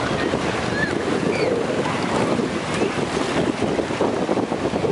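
Ocean surf washing and breaking in the shallows, with wind buffeting the microphone.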